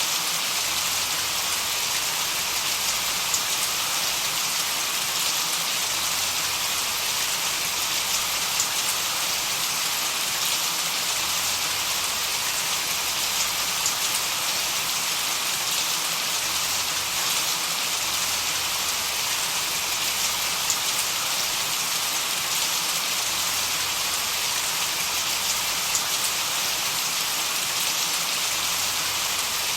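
Steady white noise with the sound of rain: an even, unchanging hiss, brightest in the upper range, with faint scattered drop-like ticks.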